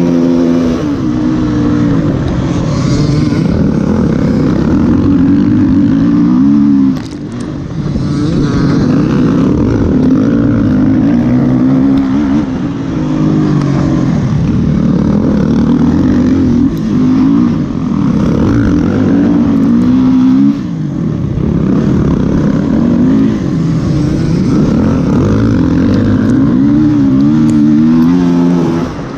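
Enduro motorcycle engine ridden hard, its pitch rising and falling constantly with the throttle, with short drops in power about seven and twenty seconds in.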